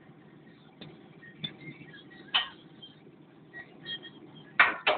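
Wrench and metal parts clinking and knocking in the engine bay of a Caterpillar 950F wheel loader during removal of its injection pump: a few scattered sharp knocks, the two loudest close together near the end, over a low steady hum.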